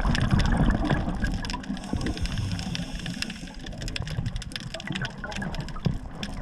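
Water sloshing and lapping, with irregular splashes and a low rumbling wash.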